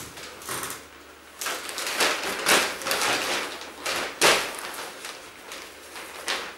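Rustling and shuffling of belongings being handled and packed, in a series of swishes, with a sharp knock a little over four seconds in.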